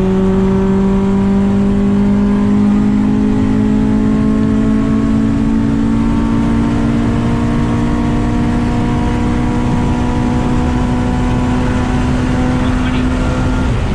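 Honda Civic Si engine and exhaust, with a test pipe in place of the catalytic converter, pulling under steady acceleration: a loud, even note that rises slowly in pitch throughout.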